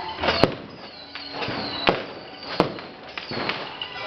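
Firecrackers going off in irregular single sharp bangs, about three loud cracks with lighter crackling between them.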